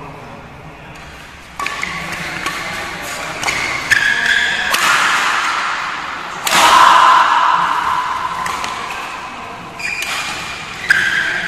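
Badminton rally: rackets strike the shuttlecock in a series of sharp smacks at uneven intervals, ringing in the hall. The loudest hit comes about six and a half seconds in, followed by a sustained sound that dies away over about three seconds.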